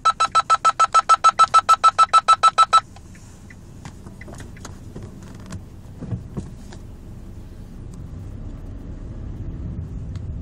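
Driving-test sudden-stop warning alarm: a rapid electronic beeping, about six beeps a second, that cuts off about three seconds in. It is followed by the low rumble of the test car pulling away.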